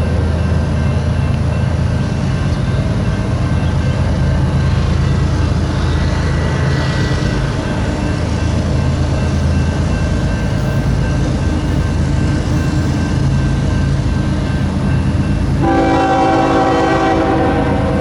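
Union Pacific freight train's diesel locomotives running steadily as the train passes, with the locomotive air horn sounding a chord near the end.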